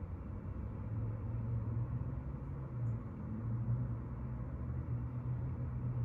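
Steady low rumble of room background noise, with nothing sudden standing out.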